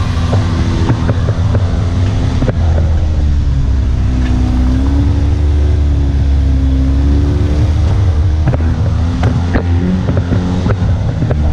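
Engine of a side-by-side off-road buggy running as it drives a rough dirt trail, its pitch rising through the middle and dropping back. The engine note sits over a heavy low rumble, with a few knocks and rattles from the bumps.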